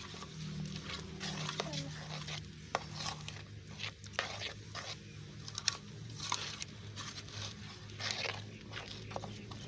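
A metal spoon stirring a thick, sticky mix of seeds and dark liquid in a steel pot, with irregular scrapes and light clicks against the pot's side. A faint steady low hum runs underneath.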